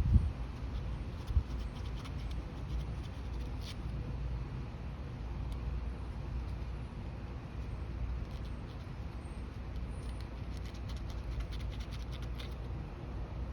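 Light clicks and knocks of small metal carburetor parts being handled, a few sharp ones early and a cluster of faint ticks near the end, over a steady low hum.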